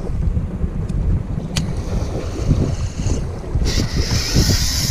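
Wind buffeting the microphone on an open boat at sea, with waves moving alongside; a steady hiss comes in about three and a half seconds in.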